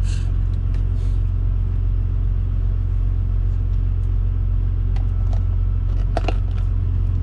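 Steady low rumble of a diesel semi truck idling, heard from inside the cab. A few light clinks of cookware ride over it, the loudest about six seconds in.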